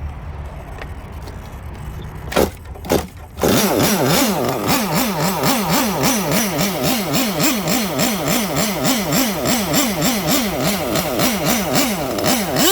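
Nitro RC engine with a turbo glow plug firing with two short bursts, then running with its pitch rising and falling about twice a second, and falling away sharply at the end. The uploader blames the engine stalling at idle on a bad glow plug.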